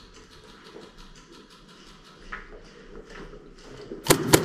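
Footsteps scuffing and tapping on a concrete floor in a small tiled room, then two sharp airsoft gun shots in quick succession near the end.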